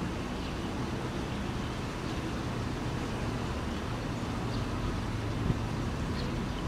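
Steady low rumble of outdoor background noise, with a few faint short high ticks now and then.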